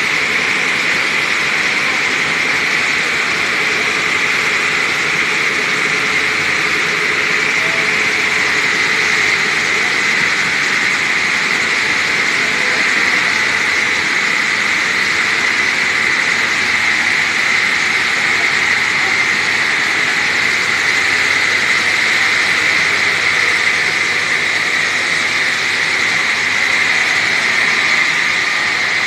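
Loud, steady machinery noise in a stone workshop, an even hiss-like drone that runs on without breaks or changes.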